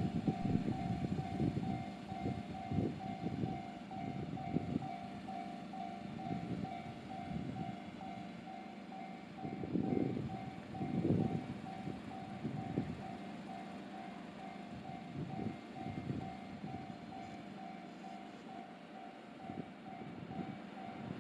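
Japanese railway level crossing's electronic warning bell ringing, a steady repeated ding about twice a second, over irregular low rumbling.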